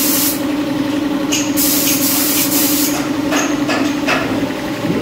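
Spray gun hissing in on-off bursts, three times, each up to about a second and a half long, over the steady hum of a running motor.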